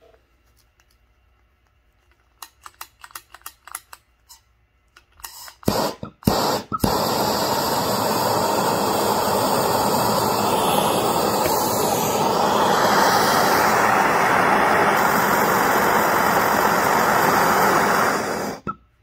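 A run of clicks and knocks as a hand-held Bernzomatic gas torch on a yellow MAPP-type cylinder is readied, then the torch lights about seven seconds in and burns with a loud, steady hissing flame, heating a steel drill bit, before being shut off suddenly near the end.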